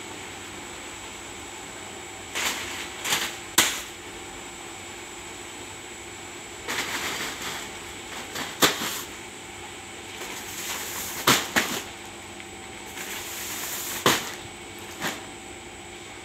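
Inclined belt conveyor running with a steady hum. Several sharp knocks and rustles come over it as plastic-wrapped bags and packs land on and move over the roller bed at its foot.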